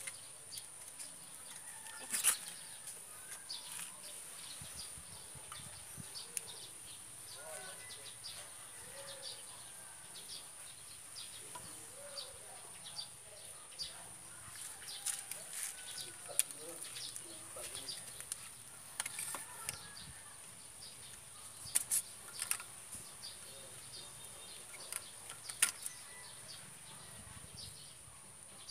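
Scattered clicks and knocks of PVC pipe and plastic fittings being handled and fitted together by hand, over a steady high-pitched whine.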